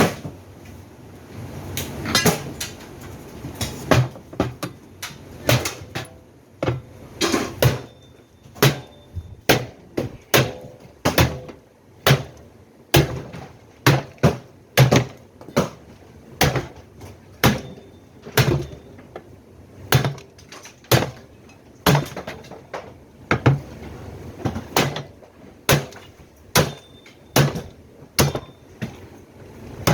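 Repeated hammer blows on parts of a top-load washing machine, about one or two sharp knocks a second, each with a short ring.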